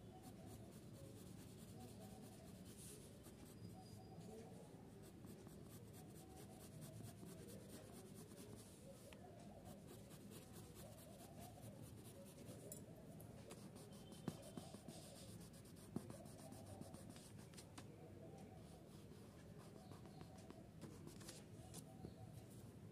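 Faint scratching of a graphite pencil shading on paper in quick repeated strokes, with two light taps about halfway through.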